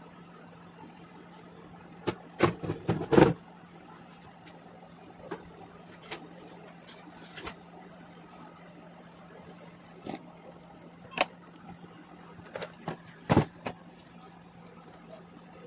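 Scattered knocks and clicks over a faint steady hum. There is a cluster of several knocks about two seconds in, a few single ticks after it, and another cluster near the end.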